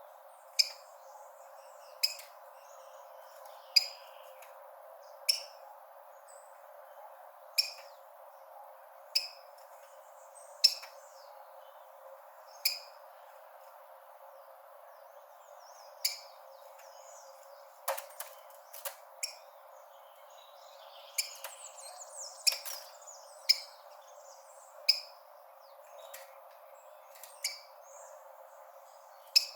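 Rufous-collared sparrow giving short, sharp call notes, mostly about one every one and a half seconds, with a quicker run of notes a little past the middle, over a steady hiss.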